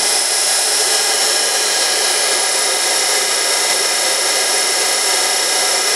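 Heald 271 Gage-Matic internal grinder's 17,500 RPM grinding spindle running at speed: a steady high-pitched whine over a dense hiss.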